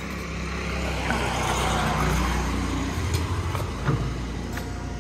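A motor vehicle passing on the street, its low rumble swelling to a peak about two seconds in and then easing off. A few light clicks follow near the end as the metal knob of a wooden gate is handled.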